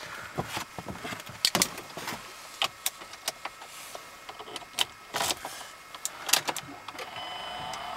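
Scattered clicks and knocks inside the cabin of a 2008.5 Mazdaspeed3 as it is readied for a cold start. About seven seconds in, a steady hum of several held tones begins.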